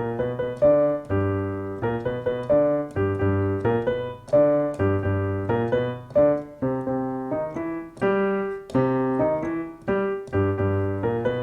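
Piano playing a repeating blues figure: low left-hand bass notes under short right-hand chords and double notes, struck in a steady rhythm, each note decaying after it is struck.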